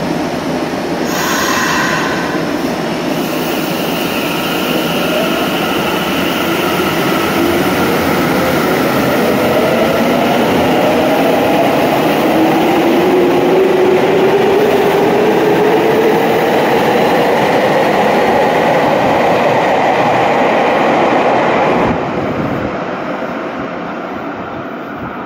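Nagoya subway Tsurumai Line train running on the line, its motors whining and rising steadily in pitch as it accelerates over wheel and track rumble. The sound eases somewhat near the end.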